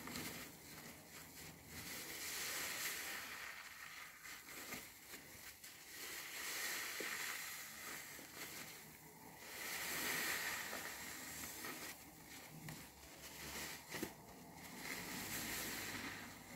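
A large foam car-wash sponge squeezed and kneaded in a basin of thick soap lather, making wet squishing sounds that swell and fade about four times, with one short click near the end.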